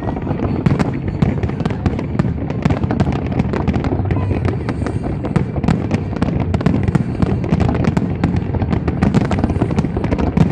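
Fireworks display going off in a dense, continuous run of overlapping bangs and crackles.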